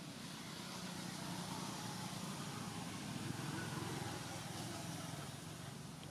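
A motor vehicle passing: a steady low engine hum that swells to its loudest three to four seconds in, then fades.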